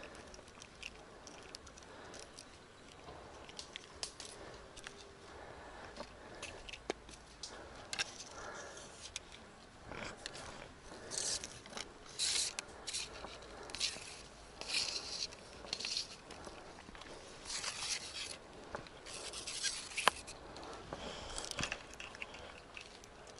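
Close rustling and scraping from hands handling a fishing line and float rig near the microphone, in short irregular bursts, with one sharp click about 20 seconds in.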